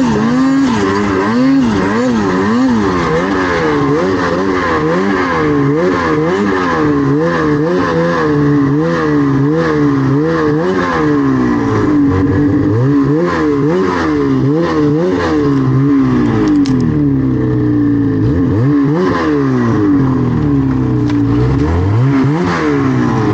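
Snowmobile engine being ridden hard, revving up and down over and over: the pitch rises and falls about once a second, then in slower, longer swoops in the second half.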